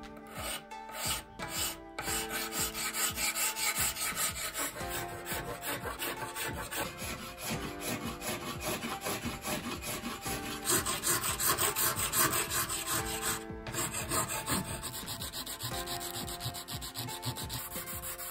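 Rapid back-and-forth rasping strokes of hand-sanding and filing along the edge of a plastic sword blade, with sandpaper on a wooden block and a hand file. The strokes start about two seconds in.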